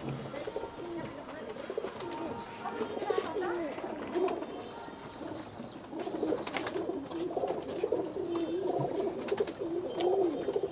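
Many domestic pigeons cooing at once, a dense run of overlapping low calls, with thin high-pitched chirps above them. A couple of sharp clicks come about halfway through and again later.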